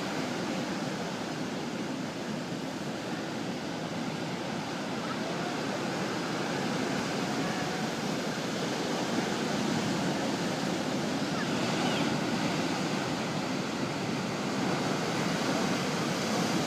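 Ocean surf: waves washing and breaking in a steady rush of noise that grows slightly louder in the second half.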